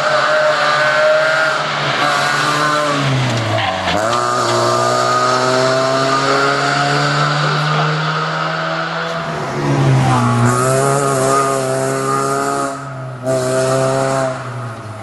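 Rally car engine at high revs passing the spectators, its pitch climbing steadily and dropping sharply about three and a half seconds in and again around ten seconds and near the end, as the driver shifts or lifts off.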